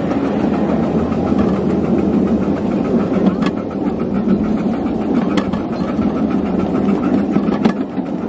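Ride-on miniature train running along the track: a steady mechanical rumble of the moving train, with a few sharp clicks.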